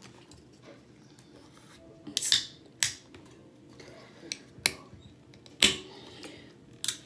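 Aluminium drink can of sparkling water being worked open: about half a dozen sharp metallic clicks from the pull tab, one about two seconds in drawn out into a short hiss, the loudest a little past halfway.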